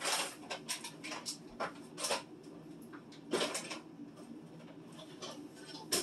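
Scattered knocks, clatters and rustles of containers and packaged food being handled and set down, a few seconds apart, over a steady low hum.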